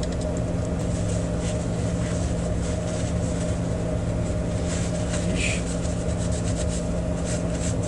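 A paper towel rustling and rubbing as small parts are wiped by hand, with light handling clicks, over a steady low hum.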